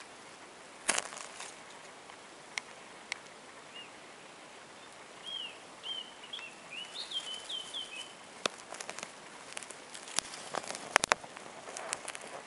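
Sharp scraping clicks of an empty lighter's flint striker wheel being struck to throw sparks onto tinder: one about a second in, two more soon after, then a quick cluster in the second half. A small bird chirps a short run of notes in between.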